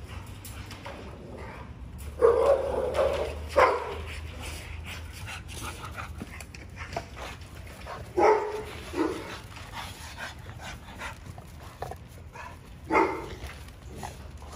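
Pit bulls barking a handful of times, in short outbursts spaced several seconds apart, over a steady low hum. They are begging for a raw chicken snack.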